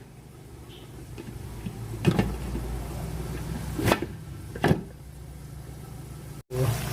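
Cookware clanking three times, about two, four and four-and-a-half seconds in, over a low steady rumble while a pot of adobo is brought to a boil.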